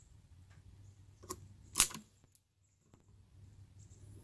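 Klein Katapult spring-loaded wire stripper working on a cable: a small click, then a loud sharp snap about two seconds in as the jaws strip the insulation off the wire.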